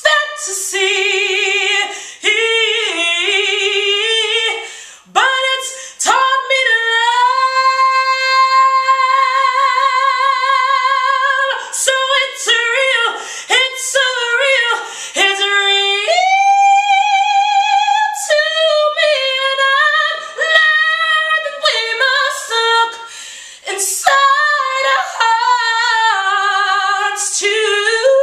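A woman singing solo a cappella, with no accompaniment: long held notes with vibrato, broken up by quick vocal runs.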